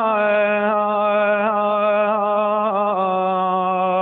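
A man's voice singing one long held note of a folk song, slightly wavering, the pitch stepping down a little about three seconds in.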